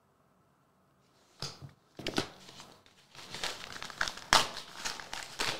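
White paper padded mailer bag crinkling and rustling as it is handled in the hands, with a sharp crackle or two about a second and a half in and dense crinkling from about two seconds on.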